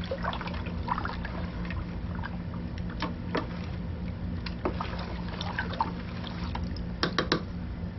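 Wooden spoon stirring thin tomato juice in a large enamel stockpot, with the liquid sloshing. A few sharp knocks of the spoon against the pot come through, including a quick cluster of them about seven seconds in.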